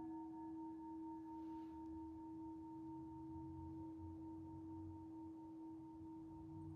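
Singing bowl ringing on with a long, steady, faint tone. A soft low hum joins underneath about three seconds in.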